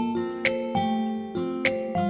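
Background music: a gentle melody of plucked notes, a new note about every half second, each ringing and fading.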